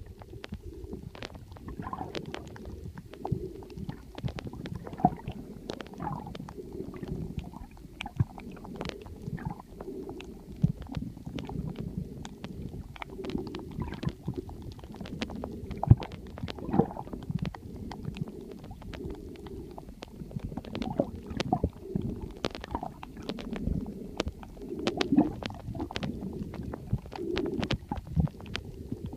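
Underwater reef ambience: a low, muffled rumbling and gurgling of water, dotted with many sharp clicks and crackles.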